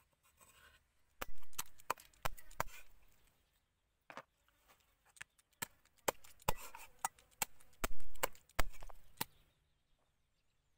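Heavy kitchen knife and cleaver chopping on a thick wooden chopping block: spring onions first, then raw chicken pieces. About fifteen sharp knocks at uneven intervals, the loudest about a second in and about eight seconds in.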